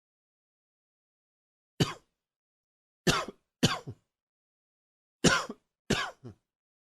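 A man coughing in five short, sudden coughs: one, then a quick pair, then another pair. The uploader says the coughing was brought on by a tickle in the throat.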